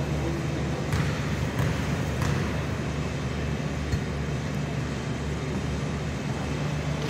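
Steady low hum of a gymnasium, with three short sharp thuds about a second, a second and a half and two and a quarter seconds in: a basketball bounced on the court floor by a free-throw shooter before the shot.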